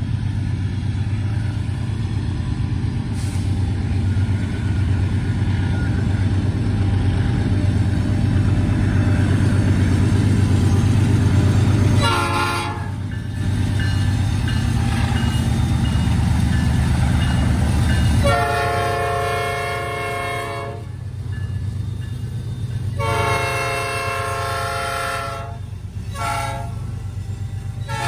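Diesel freight locomotive rumbling heavily, then sounding its air horn: a brief toot, then two long blasts, a short one, and the start of another long one, the long-long-short-long pattern of a grade-crossing warning.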